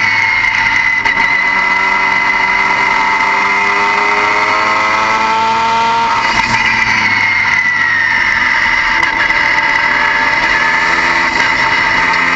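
Car engine running with a loud, high whine whose pitch climbs slowly, shifts abruptly about halfway through, then sinks. The whine is typical of a failing turbocharger.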